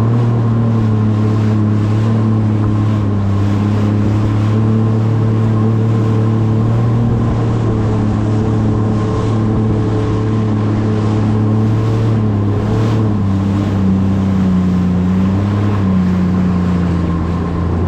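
Jet ski engine running at a steady cruising speed with a steady hum over a rushing hiss; the pitch dips slightly near the end.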